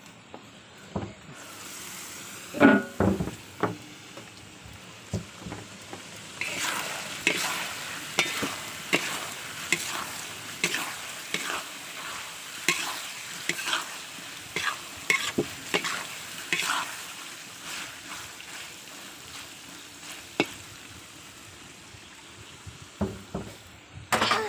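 Metal spatula stirring and scraping meat around a large metal wok as it fries, with steady sizzling underneath and repeated clanks and scrapes of metal on the pan. A few loud metal clanks come about two to three seconds in.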